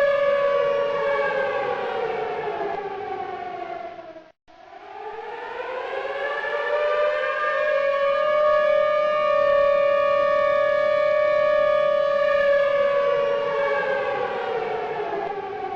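Outdoor civil-defence warning siren sounding a tornado warning: a steady tone with a stack of overtones that winds down in pitch, drops out for a moment about four seconds in, winds back up and holds, then winds down again and cuts off abruptly at the end.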